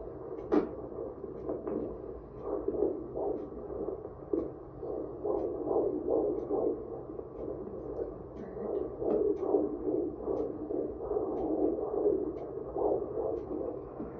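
An 18-week fetus's heartbeat played through the ultrasound machine's Doppler: a continuous whooshing sound that pulses in quick repeated swells.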